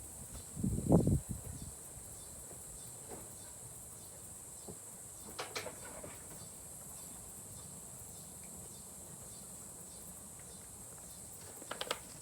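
Steady high-pitched insect chorus, crickets or cicadas, with a heavy thud about a second in and a few light clicks of handling near the end.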